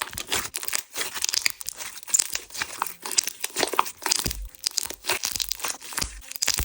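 Hands working a tacky coated clear slime, giving a dense, irregular run of sticky crackles and small pops as it is pressed and pulled. The tackiness is what makes it crackle and pull apart like this.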